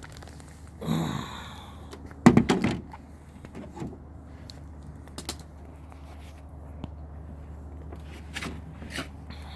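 Hands working on car parts: a rustle, then a short clatter of knocks and clicks, followed by scattered small clicks, over a steady low hum.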